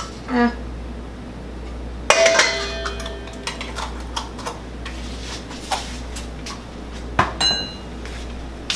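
Metal spoon clinking against a stainless steel mixing bowl: a sharp ringing clang about two seconds in, light ticks and taps after it, and another ringing clink near the end.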